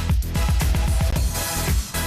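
Electronic dance music with a heavy, steady bass beat.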